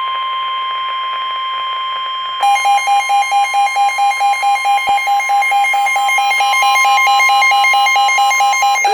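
Emergency alert tones for a severe thunderstorm warning: a steady single-pitch tone, joined about two seconds in by a harsh pulsing beep repeating about three to four times a second. The steady tone stops just before the end while the beeping carries on.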